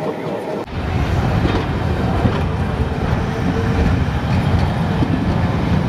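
Railway carriage running at speed, heard from inside: a loud, steady, deep rumble of wheels on rails. It starts suddenly about half a second in.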